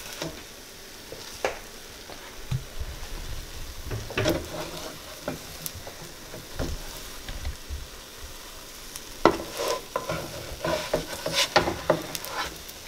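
Eggs sizzling in a buttered frying pan, with scattered scrapes and taps of a spatula against the pan as the omelette's sides are folded in. The taps come thickest in the last few seconds.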